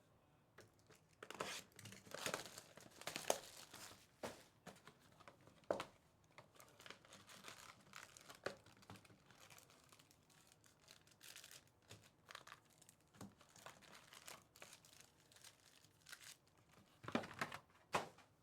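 Trading-card packaging being torn open and crinkled: faint, irregular crackling and tearing, busiest a second or so in and again near the end.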